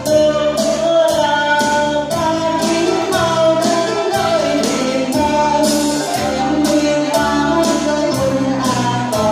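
Hồ Quảng opera singing: a single voice sings a wavering melody over instrumental accompaniment with a steady percussion beat.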